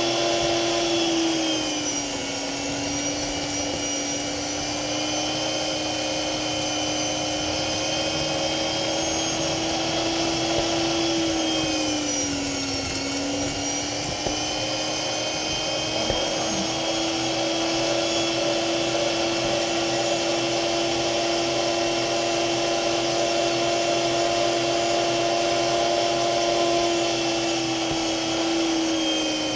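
Small electric kitchen appliance motor running continuously at high speed with a steady whine. Its pitch dips about two seconds in and again about halfway through.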